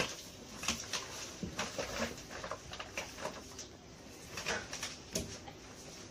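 Irregular scuffling, rustling and light knocks of people moving on a tiled floor and under a wooden bed.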